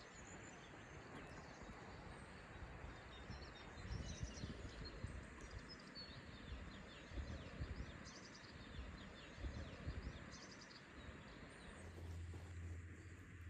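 Faint outdoor ambience: small birds chirp now and then over a low, uneven rumble. Near the end a steady low hum comes in.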